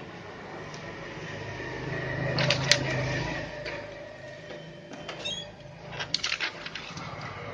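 Canon iR3300 copier running with a low mechanical hum that swells about two seconds in and eases off. Near the end, a short squeak and a quick run of plastic clicks and knocks as the document feeder lid is raised and an original is laid on the glass.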